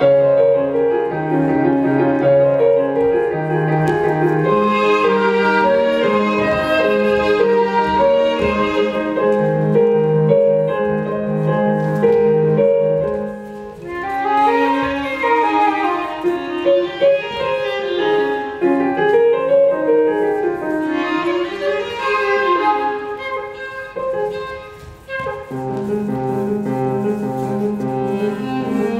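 Chamber music for piano, flute and viola: a steady figure of repeated low notes, then, about halfway through, rising and falling runs for roughly ten seconds before the repeated low notes return.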